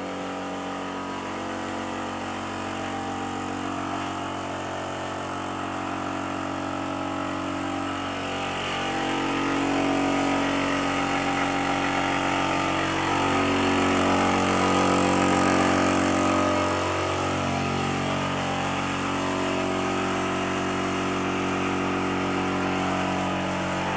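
An engine running continuously, its pitch steady at first, then rising and falling several times in the middle.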